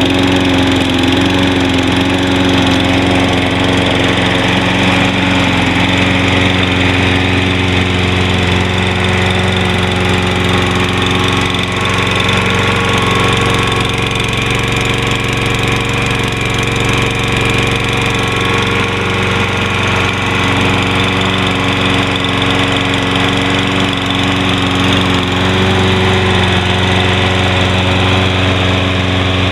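Electric-start Toro Recycler 20334 walk-behind lawn mower engine running steadily, cold, after a key start.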